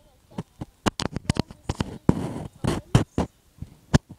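Irregular sharp clicks and knocks, roughly three a second, with a brief rustling burst about two seconds in.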